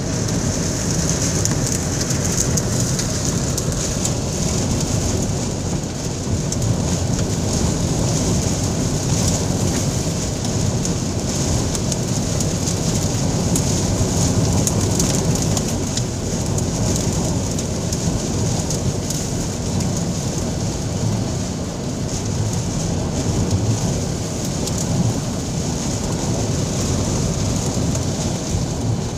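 Lakeshore thunderstorm squall: heavy wind-driven rain beating on a parked vehicle, a steady loud hiss over a deep, gusting wind rumble.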